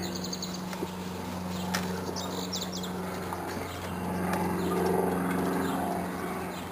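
A steady low engine drone that swells about four seconds in, with small birds chirping briefly at the start and again about two seconds in.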